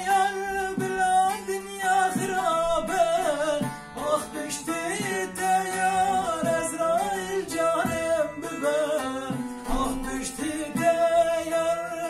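A man singing a slow folk melody in long held notes that bend and waver, accompanied by a bağlama (long-necked saz) strummed along with him.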